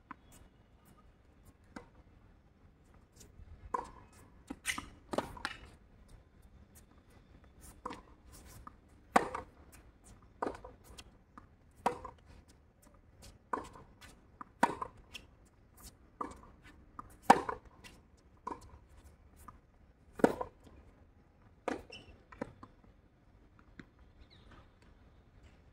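Tennis ball being hit back and forth on a hard court: sharp pocks of racket strikes and ball bounces, one every second or so, with a few louder hits from the near player.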